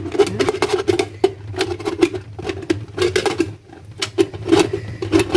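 Stainless-steel pressure cooker lid being worked onto the pot: a quick, irregular run of metal clicks, clacks and scrapes as the lid and its handle are fitted into place.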